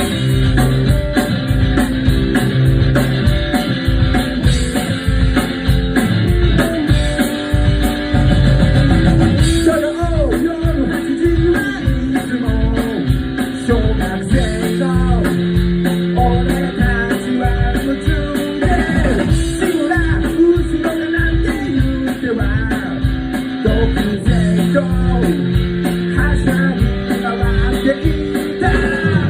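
A rock band playing a song live: guitar, bass and drum kit with a steady beat.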